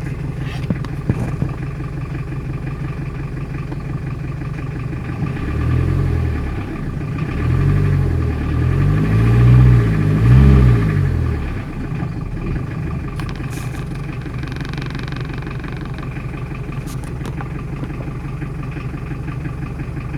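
Tata Indica engine idling with a rapid chik-chik chirp from its alternator belt, the sign of a loose alternator belt. The engine is revved up and back down about four times in the middle.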